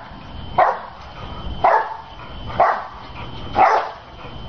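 A dog barking in short, single barks, evenly spaced about once a second, four times.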